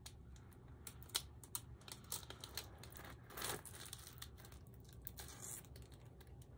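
Faint crinkling and crackling of a diamond painting canvas's plastic protective film as it is handled, with a scatter of light clicks.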